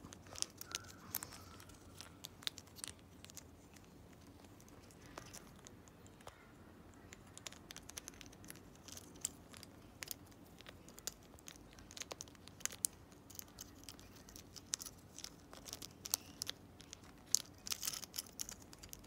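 Amazon parrot chewing a hard red plastic foot toy held in its foot: its beak clicks and scrapes on the plastic in irregular sharp ticks, coming faster near the end.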